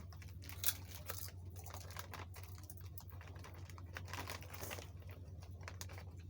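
Snack packaging crinkling, with scattered small clicks and taps as food is handled, over a steady low hum.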